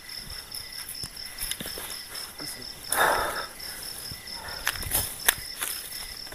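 Dry leaf litter and twigs rustling and snapping as a person clears the forest floor by hand and steps about, with a loud rustle about three seconds in and a few sharp snaps around five seconds. Behind it, insects chirp in a steady, even pulse.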